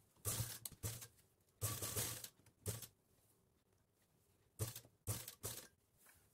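Sewing machine stitching in a string of short bursts, each under a second, stopping and starting with pauses between.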